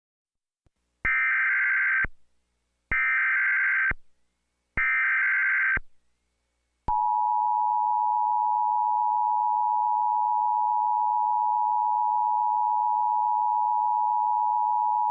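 Emergency Alert System alert opening: three one-second bursts of SAME header data, evenly spaced, then about a second later the steady two-tone EAS attention signal held for about eight seconds before cutting off suddenly. It marks the start of an EAS broadcast, here a civil emergency message.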